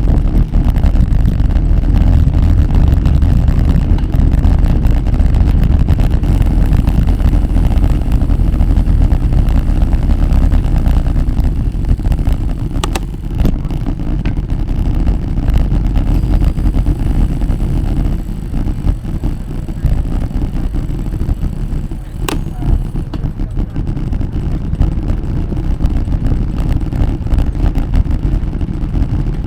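Wind buffeting the microphone on a moving bicycle, a loud uneven low rumble, with two sharp clicks, one about halfway through and one about three-quarters of the way through.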